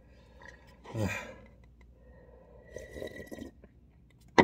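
A person eating cup ramen: faint slurping and chewing of noodles, with a brief vocal sound about a second in, and then a sharp, loud slurp from the paper cup near the end.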